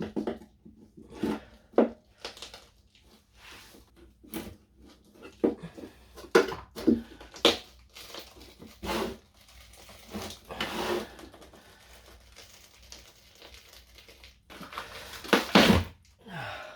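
Double-sided adhesive tape being peeled and torn off a battery's cells by hand, in irregular short ripping and crackling strokes, loudest in a burst near the end.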